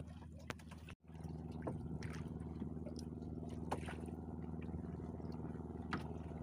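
Small boat engine idling steadily, with a few light clicks.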